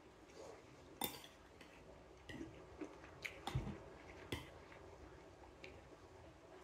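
Metal spoon clinking and scraping against a ceramic plate while food is scooped up: a few sharp clinks, the loudest about a second in, and a dull knock in the middle.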